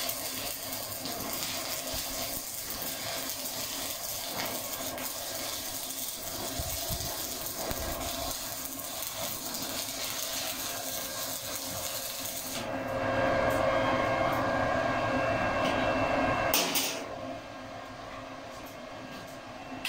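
Stick-welding (shielded metal arc) electrode arc crackling and hissing steadily while a practice bead is run on flat steel plate. About thirteen seconds in it grows louder for a few seconds, then the arc is broken and the sound cuts off suddenly about seventeen seconds in.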